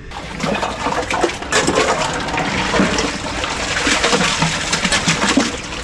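Water splashing as it is scooped and poured from a metal pot back into a chest-freezer ice bath, mixing the ice water so it is cold right through.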